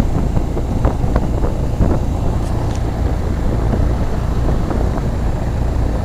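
1988 Heil heat pump outdoor unit running with a steady low hum from its compressor and fan. Its coil is iced solid because it never goes into defrost, which the owner believes is due to a faulty defrost control board.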